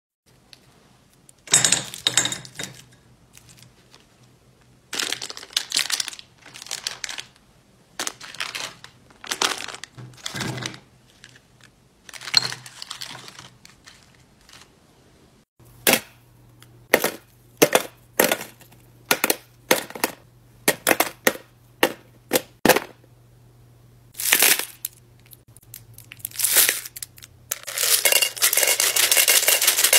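Crinkling of plastic candy wrappers as wrapped candies are laid into a ceramic serving platter, followed by a run of sharp clicks as pieces are set down on the dish. Near the end comes a steady, dense rattle of tiny candies shaken out of a plastic dispenser onto a glass platter.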